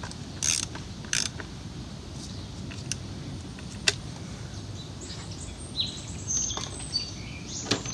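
Ratchet and cap socket snugging up an oil filter housing cap: a few short clicks and creaks from the tool in the first second or so, then scattered light clicks. Faint bird chirps come near the end.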